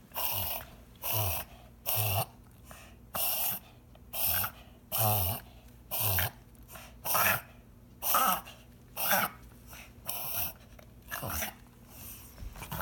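A dog coughing over and over, about once a second, each a short noisy hack, a dozen in a row: the sign of its breathing problem.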